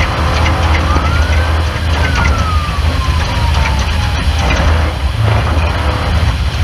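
Off-road race car running, a loud steady low engine drone with rattling and ticking. Early on, a thin tone rises briefly, then slides down over a couple of seconds.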